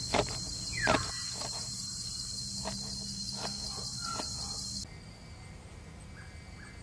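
A knife chopping spring onions and leafy greens on a cutting board, with two sharp chops early and a few lighter cuts after, over a steady high-pitched drone of crickets. About five seconds in, the cricket drone cuts off suddenly, leaving a quieter night ambience.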